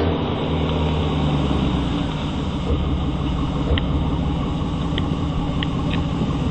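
Supercharged Chevrolet Silverado pickup's engine running with a steady low rumble as the truck rolls up and stops. A few short high chirps sound in the second half.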